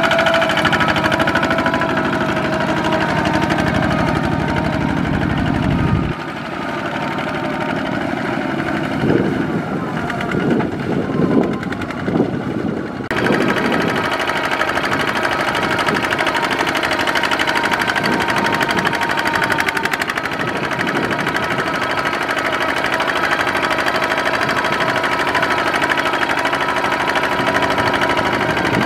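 Kubota ZT155 walking tractor's single-cylinder diesel engine running steadily as it pulls a loaded trailer through mud. There is a stretch of uneven, louder noise in the middle, and the sound changes abruptly twice.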